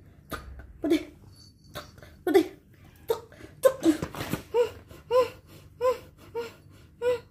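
A woman laughing in a string of short bursts, which come evenly spaced in the last few seconds.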